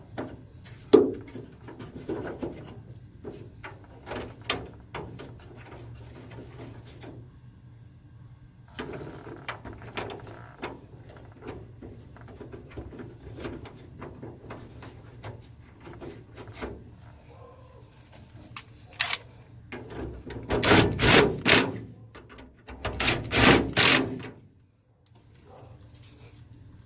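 Scattered clicks, knocks and rubbing from hands and tools working on a truck's plastic front grille and its fasteners, with two louder bursts of quick rattling clicks near the end.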